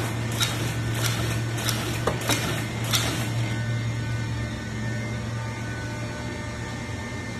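Facial-mask sheet suction-pick counting machine running: a steady low hum, with about five sharp clicks in the first three seconds, after which only the hum and faint steady tones go on.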